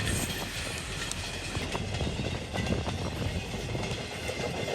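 Strong wind blowing over the microphone in rain: a steady low rumble with a hiss above it.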